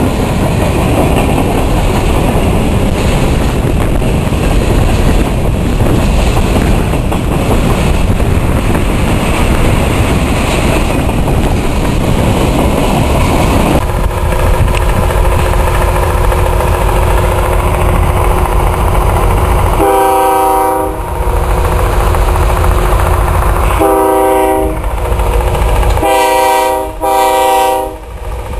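Freight train of covered hopper cars passing close by, with a steady rumble and clatter of wheels on rail. After a cut, a locomotive's air horn sounds over low wind rumble: three blasts about a second long, the last broken briefly in two.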